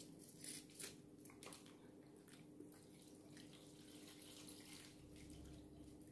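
Near silence: room tone with a faint steady hum, and a few faint clicks in the first second or so from handling food.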